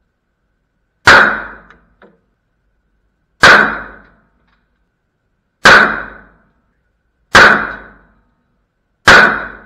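Five single shots from a .40-caliber pistol, spaced about one and a half to two seconds apart, each a sharp crack with a short echo off the walls of an indoor range.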